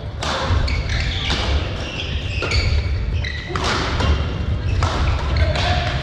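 Badminton doubles rally: rackets striking the shuttlecock about once a second, with sneakers squeaking on the court floor, echoing in a large sports hall.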